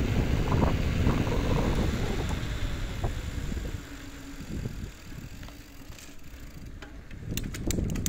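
Wind buffeting the microphone over the rolling noise of a road bicycle on tarmac, easing off about halfway through. A few light, sharp clicks come near the end.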